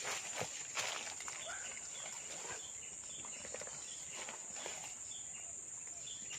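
Insects, crickets or similar, keep up a steady high-pitched trill, with scattered short chirps over it. A few brief knocks come in the first second.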